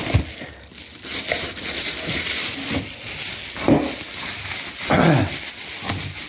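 Packaging crinkling and rustling as a newly delivered car part is handled and unwrapped, with a few sharper crackles partway through.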